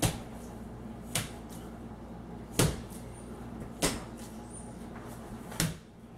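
Stipple brush on a pole slapped up against a drywall ceiling coated in wet joint compound: five sharp dabs, each a second or more apart, over a low steady hum.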